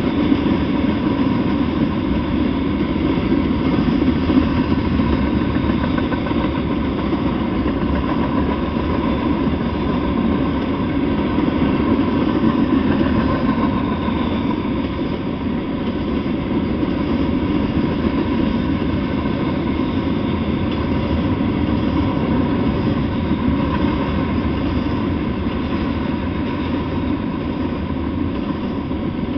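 Freight train of tank cars and covered hopper cars rolling past at a steady speed: an unbroken, even noise of steel wheels running on the rails.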